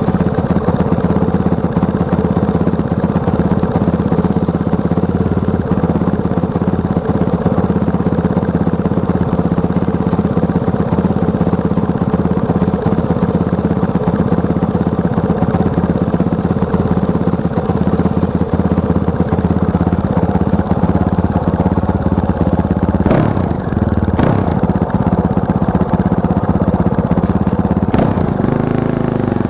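Fantic Caballero 500 Flat Track's single-cylinder four-stroke engine idling steadily, with three short sharp clicks in the last few seconds.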